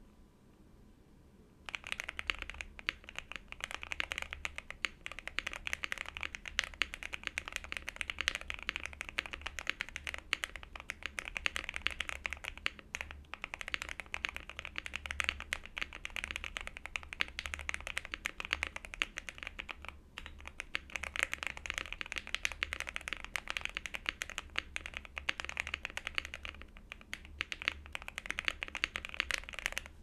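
Fast, continuous typing on an Akko Alice Plus mechanical keyboard with lubed Gateron Oil King linear switches, tuned Durock V2 stabilizers, a polycarbonate plate, foams and tape mod, and Akko ASA-profile keycaps: a dense stream of keystrokes starting about two seconds in, with a couple of brief pauses.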